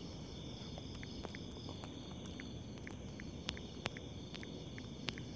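Faint, scattered ticks of a finger typing on a smartphone's on-screen keyboard, about ten taps, over a steady high-pitched background hiss.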